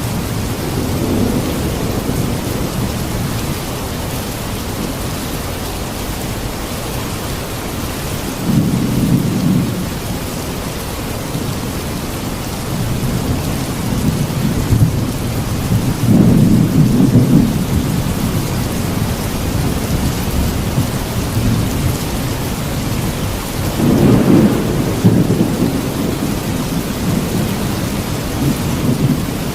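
Steady rain falling, with low rolls of thunder rumbling three times.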